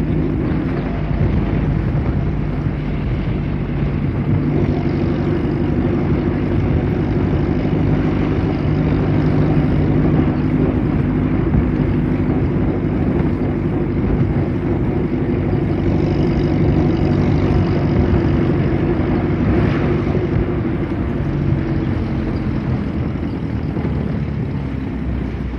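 A 1929 Bentley vintage car driving, its engine running steadily, with the note dropping slightly and getting a little quieter near the end.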